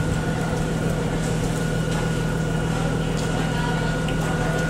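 Steady hum of an idling engine: a low drone with a thin high whine over it, unchanging throughout.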